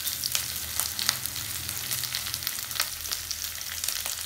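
Onions, green chillies, dry red chillies and garlic frying in hot oil in a nonstick wok: a steady sizzle dotted with many small crackles and pops.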